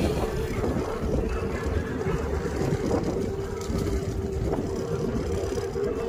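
Electric kick scooter riding fast over a rough dirt track: a steady whine from its electric motor over a continuous low rumble of tyres on the bumpy ground and wind on the microphone.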